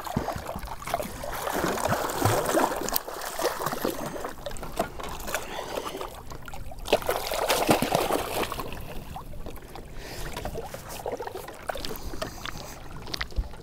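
Water splashing and sloshing at the side of a boat as a hooked lake trout thrashes at the surface and is grabbed by hand, with scattered knocks and clicks.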